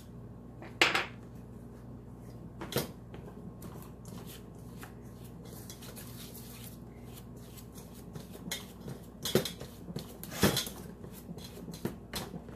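Metal pastry cutter clinking and scraping against a stainless steel mixing bowl as cold butter is cut into flour. The clinks are scattered and uneven, with the sharpest about a second in and again around nine and ten seconds in.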